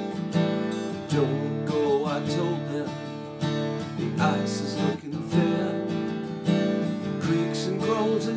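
Acoustic guitar strummed steadily, with a man singing over it in places.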